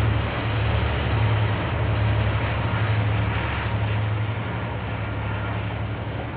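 Two KiwiRail diesel locomotives hauling a freight train past, their engines giving a steady low drone over the rumble of the wheels on the rails. The sound eases slightly from about four seconds in, as the locomotives move off and the container wagons roll by.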